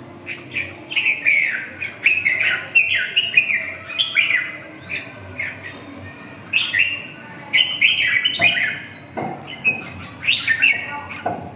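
Caged red-whiskered bulbuls singing, a quick, near-continuous run of short, sweeping whistled phrases. Two sharp knocks come through, one about eight seconds in and one near the end.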